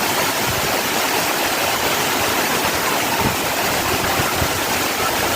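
Heavy rain pouring down steadily, a dense even hiss with scattered heavier drops and splashes.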